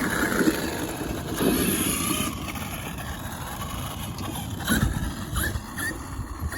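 Traxxas X-Maxx 8S electric RC monster truck being driven in uneven bursts, its motor and drivetrain whirring louder at the start, about a second and a half in and near five seconds. The owner suspects the center driveshaft was damaged on the last jump.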